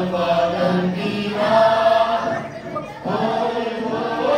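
A group of children's voices chanting and singing together in unison, holding long notes, pausing briefly about two and a half seconds in and then starting again.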